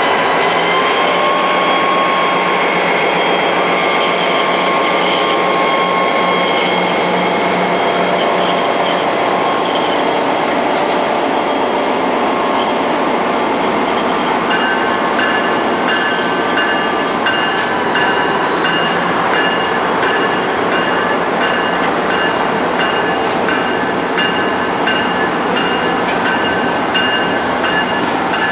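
CSX freight locomotives, road slug 2360 leading, rolling slowly through a curve onto an industrial spur, their wheel flanges squealing in several steady high tones against the rail. About halfway in, a regular ringing repeating roughly once a second joins the squeal.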